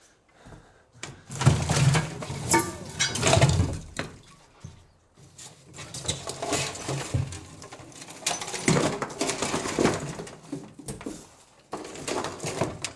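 Junk and scrap metal being handled and dropped inside a metal shipping container: irregular clattering and clanking. It is loudest about two to four seconds in and again around nine to ten seconds.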